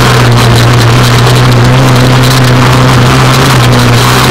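Dune buggy engine heard from the onboard camera, running loudly at a steady pitch under power, with rushing wind and dirt noise on the microphone.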